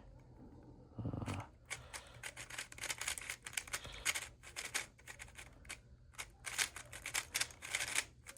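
Plastic Megaminx speed puzzle being turned fast in the hands: a dense run of quick clicking turns as an algorithm is executed.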